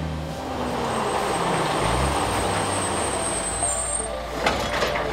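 Tadano truck crane driving and braking in a brake test: loud tyre and engine noise, with a thin high-pitched squeal for a few seconds and a few sharp knocks near the end.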